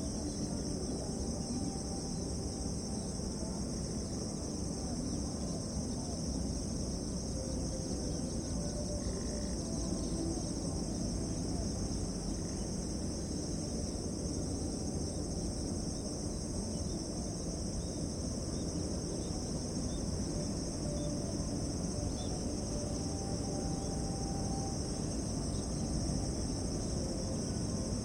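Steady insect chorus, an unbroken high chirring in two bands, over a low steady rumble.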